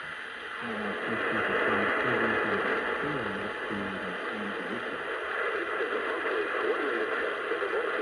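Off-air radio reception heavy with static hiss, a faint voice just audible underneath.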